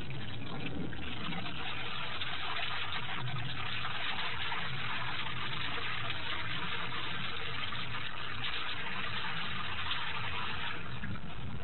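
Steady rain falling on a stone ledge, heard as an even hiss with no break.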